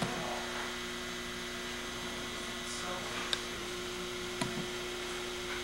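A steady electrical hum made of two low, even tones, with a couple of faint clicks about three and four and a half seconds in.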